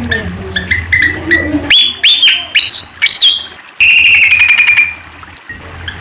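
Malaysian pied fantail (Rhipidura javanica) singing: a run of quick squeaky chirps, then several upward-slurred whistles about two seconds in, and a steady high rattling trill about four seconds in.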